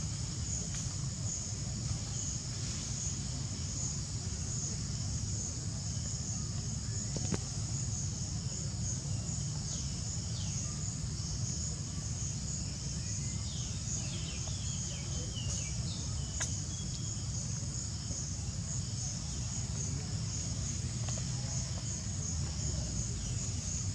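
Steady chorus of insects: a high, shrill, finely pulsing drone that never lets up, over a low rumbling background. A few faint, short high chirps come through near the middle.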